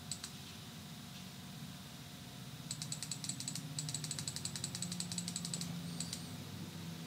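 Faint typing on a computer keyboard: a quick run of small clicks, about ten a second, starting about three seconds in and lasting about three seconds, over a low steady hum.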